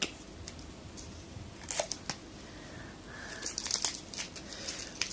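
Packaging being handled and unwrapped by hand: scattered crinkles and clicks, growing denser over the last two seconds or so.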